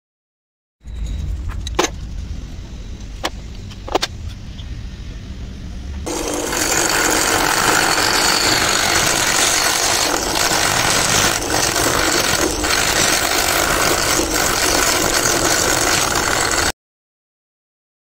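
A low machine rumble with three sharp clicks, then a much louder, steady machine noise from about six seconds in that cuts off suddenly near the end.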